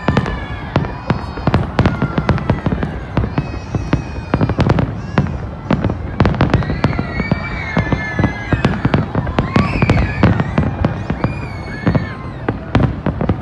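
Fireworks display: many bursts going off in quick succession, several bangs and crackles a second, with no let-up.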